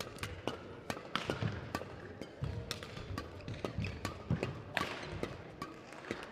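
A badminton rally: rackets strike the shuttlecock in a quick exchange, with sharp irregular hits several times a second, while players' shoes thud and tap on the court floor.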